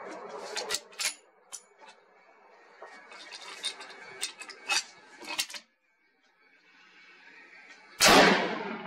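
Sharp metallic clicks of a bolt-action rifle being worked, then a single .338 Lapua Magnum rifle shot about 8 seconds in. The shot is the loudest sound and dies away over about a second.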